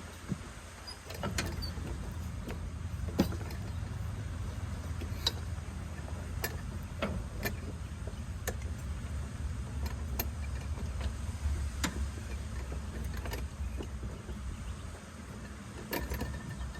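A steady low rumble, like an engine running at a distance, that comes in about a second in and eases near the end, with scattered light clicks and taps over it.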